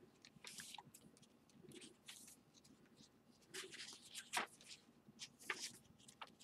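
Faint rustling of thick paper pages in a chunky handmade journal being turned by hand: several soft page flips and paper brushes, with a few small clicks.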